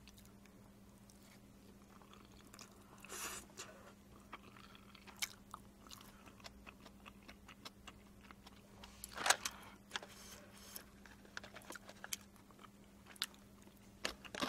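Close-miked eating of spicy black-bean instant fried noodles (Jjajang Buldak Bokkeummyeon): a short slurp about three seconds in, then soft chewing with scattered wet mouth clicks and one louder smack a little past nine seconds.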